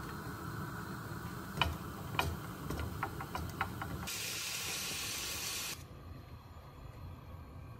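A wooden spoon knocks and scrapes against an aluminium frying pan several times while breaking up anchovy fillets in oil. About four seconds in, a steady high hiss starts, lasts about a second and a half and cuts off suddenly.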